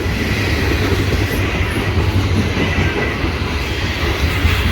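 Last cars of a loaded coal train rolling past on the rails: a steady, loud rumble of wheels and loaded freight cars.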